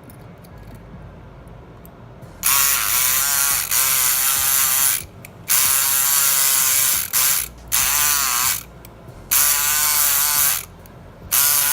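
Kronos electric pick gun buzzing in on-and-off runs of one to three seconds, its pitch wavering, as it vibrates the pins of a pin-tumbler lock cylinder to pick it open.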